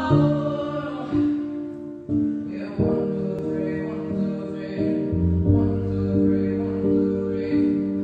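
Music with slow, sustained chords that change about every second, and a voice singing over them.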